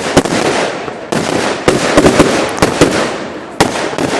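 Fireworks going off: a quick run of sharp bangs over continuous crackling.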